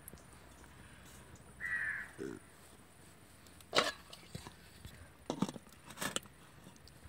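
Aluminium lids knocking against an aluminium cooking pot as they are set on, three sharp clinks in the second half. A crow caws once about two seconds in.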